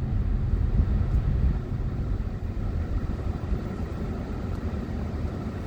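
Steady low rumble of a car driving, the engine and tyre noise heard from inside the cabin.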